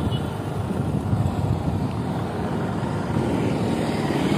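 Motorcycle running along a road, heard from the bike itself: a steady low rumble of engine and road noise.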